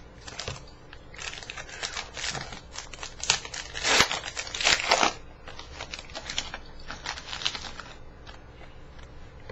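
Foil wrapper of a Panini Prizm baseball card pack being torn open and crinkled by hand, with dense crackling that is loudest about four to five seconds in. Near the end it gives way to lighter clicks as the cards inside are handled.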